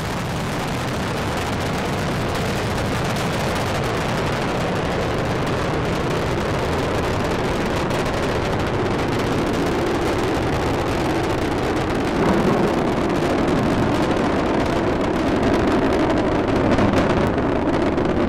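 Space Shuttle Discovery's solid rocket boosters and three main engines running during ascent shortly after liftoff, a steady dense rocket noise that gets a little louder about twelve seconds in.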